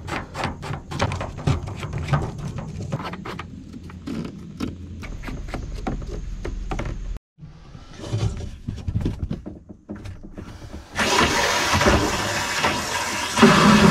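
Plastic water-line fittings clicking and rattling as they are handled and tightened by hand. About three seconds before the end a loud steady rushing starts as water is turned on to fill the RV water heater tank.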